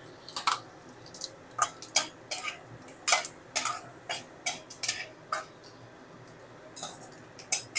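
A metal spatula clinking and tapping irregularly against a metal kadai, about a dozen short clinks, while whole spices are stirred in hot oil for the tempering (phoron).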